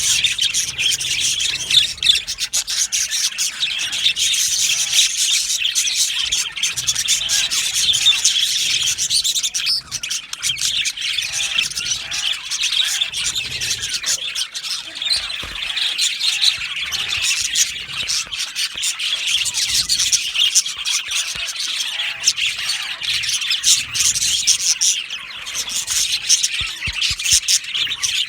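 A flock of budgerigars chirping, chattering and squawking together without pause, a dense mass of many overlapping calls.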